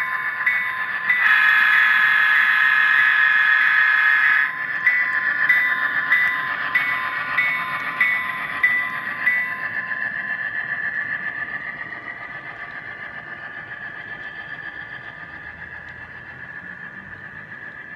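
Soundtraxx Tsunami sound decoder in an HO-scale model F7 diesel, playing EMD 567 locomotive sounds through the model's small speaker. A bell rings steadily for the first half, and a long horn blast starts about a second in and cuts off abruptly after about three seconds. The sound then fades as the locomotive moves away and the freight cars roll by on the track.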